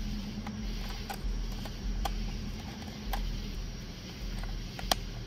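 Scattered small clicks, roughly one a second with the sharpest near the end, over a steady low hum.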